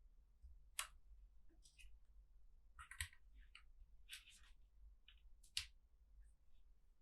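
A few scattered, light plastic clicks from keycaps on a NuPhy Air75 low-profile mechanical keyboard, coming at irregular intervals about a second apart.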